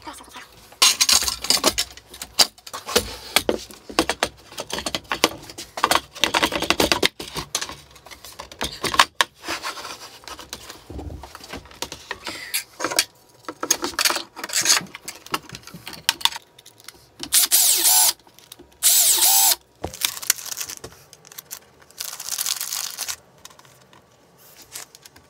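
Workshop handling of a CNC router frame: irregular clatter, knocks and scraping of aluminium extrusions, plates and an MDF board. About two-thirds of the way through come two short, louder bursts from a power tool.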